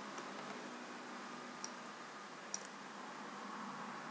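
Two single computer mouse clicks about a second apart, over a steady faint hiss of microphone room noise.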